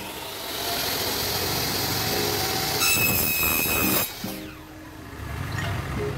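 Electric mitre saw cutting an aluminium section: the blade's high hiss turns into a screech with ringing tones for the last second of the cut. The motor then spins down with a falling whine about four seconds in, and the sound picks up again near the end.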